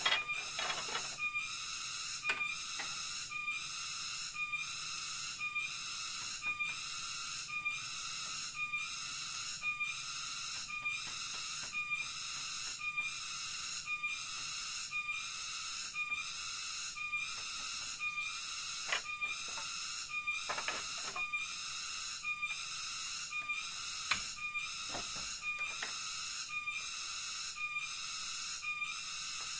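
Rainforest cicadas shrilling in a loud chorus that pulses steadily, about one and a half pulses a second. A few short knocks of bamboo poles being handled sound over it, the sharpest about 24 seconds in.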